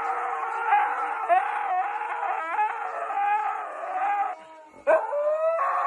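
An adult Siberian husky and a husky puppy howling together: long, wavering howls that slide up and down in pitch. There is a short lull a little over four seconds in, then a howl sweeps sharply upward again.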